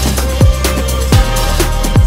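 Electronic background music with heavy kick drums that drop in pitch and a steady deep bass.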